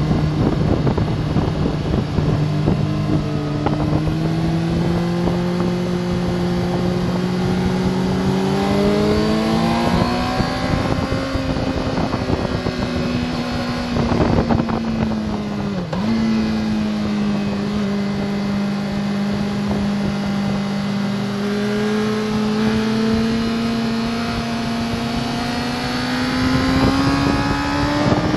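Sport motorcycle engine heard from on board at speed, with wind rushing past. The engine note climbs slowly as the bike accelerates, levels off, drops sharply and recovers about halfway through, then rises again near the end.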